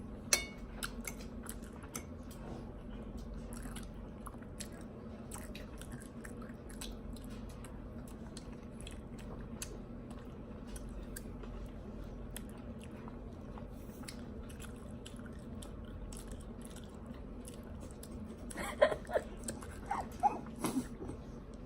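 People chewing and biting hibachi food close to the microphone: many small wet clicks and crunches over a steady low hum. A few louder sharp knocks stand out at the very start and in a cluster near the end.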